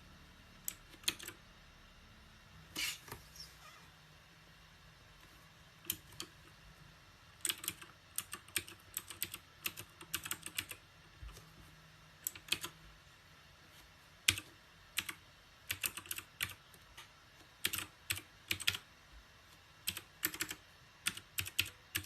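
Mechanical keyboard being typed on: sharp key clacks in irregular runs, a few scattered keystrokes at first, then quicker bursts from about a third of the way in.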